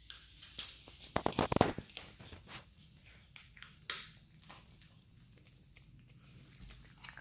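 Chihuahua crunching on a cooked chicken bone and nosing crinkly paper: a dense run of sharp crunches and crackles about a second in, then scattered clicks that thin out.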